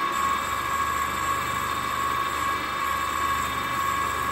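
Sieg SX2.7 bench mill running at about 1,020 RPM with a steady high whine while its 3/4-inch end mill takes a light cut in an aluminium bar fed by hand; a low hum comes in just after the start.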